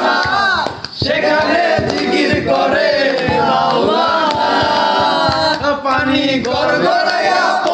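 A group of young men singing a Bengali song together, loud and unaccompanied, with hand claps keeping time.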